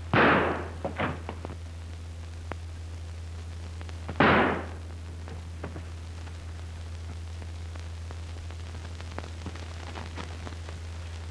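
Two loud revolver shots, one right at the start and another about four seconds in, each ringing out briefly, with a few faint clicks between them. A steady low hum of the early optical soundtrack runs underneath.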